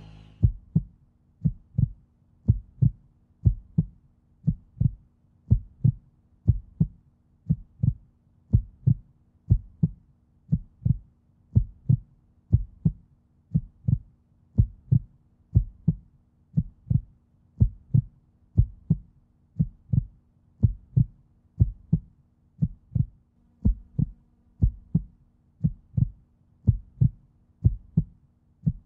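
Heartbeat sound effect: a steady run of soft, low double thumps at a resting pulse rate, over a faint steady hum.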